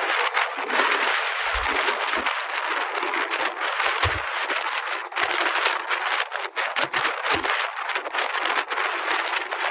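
Steady wind rushing and buffeting across a phone microphone on the open upper deck of a moving double-decker tour bus, with many brief gusty crackles.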